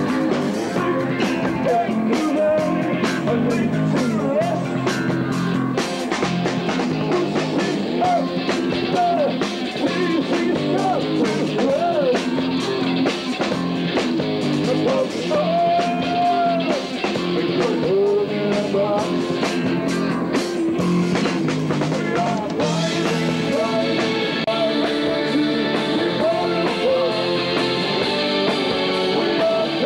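Live rock band playing with electric guitars, with a lead line that bends up and down in pitch. The band grows brighter and fuller about 23 seconds in.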